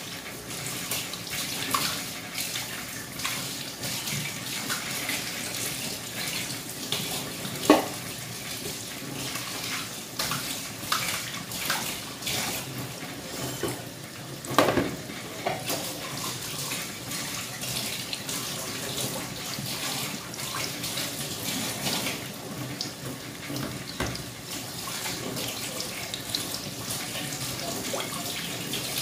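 Breaded chicken cutlets frying in hot oil: a steady sizzle with frequent small crackles. Two louder sharp sounds come about 8 and 15 seconds in.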